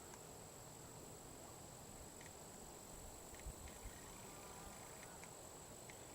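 Near silence outdoors: a faint, steady, high-pitched insect drone, with a few soft low thumps about three and a half seconds in.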